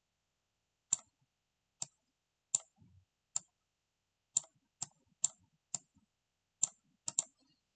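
Computer mouse clicking: about eleven single sharp clicks at uneven intervals, roughly one every half second to a second, with a quick double click near the end.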